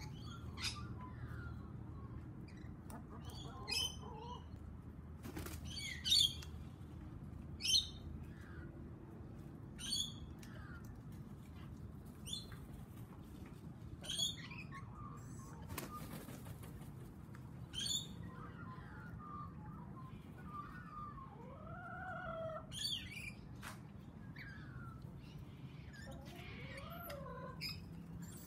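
Birds calling: short, high chirps about every two seconds, with a few lower, sliding calls about three quarters of the way through.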